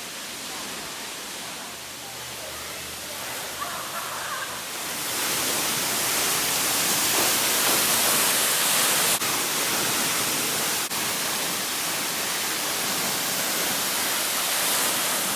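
Williamsport Falls, a high waterfall, pouring down in a steady rush of falling water that swells about five seconds in and stays very loud close behind the falls.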